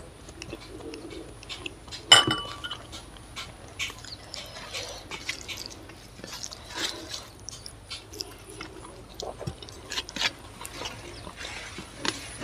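Eating sounds: curry poured from a glass bowl onto rice, then the bowl set down with a sharp ringing clink about two seconds in. Afterwards come small scattered clicks and smacks of fingers mixing rice and curry on a steel plate, and of eating.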